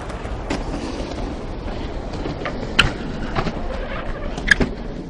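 BMX bike riding on a concrete skatepark bowl: a steady rushing noise of tyres on concrete with a few sharp clicks and knocks from the bike, the two loudest a little before the midpoint and near the end.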